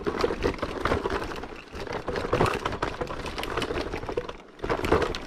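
Kick scooter clattering and rattling over a rough, stony trail: a dense, irregular run of knocks from the frame and wheels, briefly quieter about four and a half seconds in.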